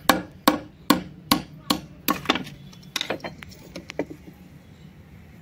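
Iron bar knocking on the back of a knife blade set into a block of white shale, about two to three sharp strikes a second, driving the blade in to split a slice off the stone. After about two and a half seconds the knocks turn softer and further apart, then stop about four seconds in.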